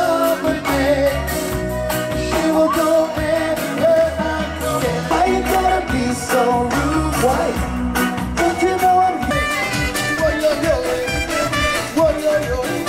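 Live band playing an upbeat song with singing, electric guitar, drums and keyboard, over a steady beat.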